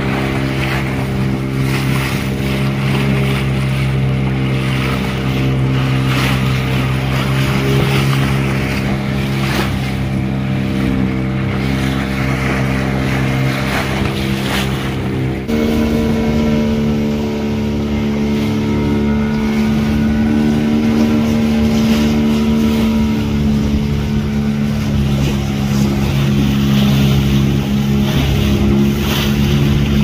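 Motorboat engine running steadily at a constant note. About halfway through, the engine note shifts abruptly to a slightly higher pitch.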